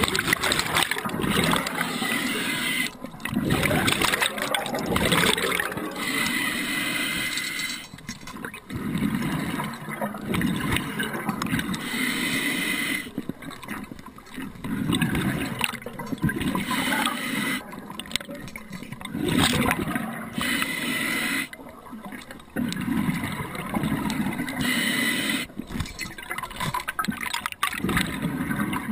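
Scuba diver breathing underwater through a regulator: long bubbling exhales alternating with shorter hissing inhales, in a slow cycle repeating every several seconds.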